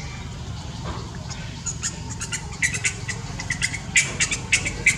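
A run of short, sharp, irregular clicks that grow denser about two and a half seconds in, over a low steady rumble.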